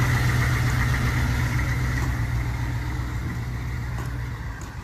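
Military-style Hummer (Humvee) engine running and pulling away, a steady low drone that fades as the truck drives off.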